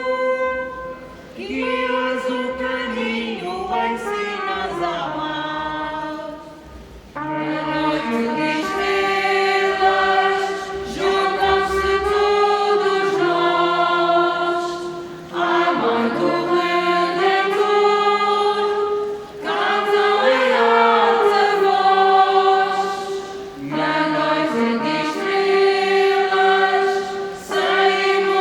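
A group of voices singing together in chorus: long sustained phrases broken by short pauses between lines.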